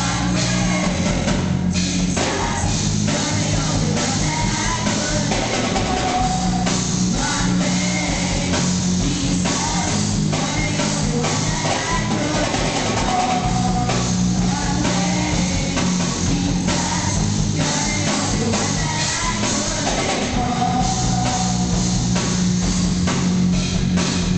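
Live band performance: electric guitars, bass, a drum kit and a group of singers playing a rock-style worship song, with the drums keeping a steady beat under the sung melody.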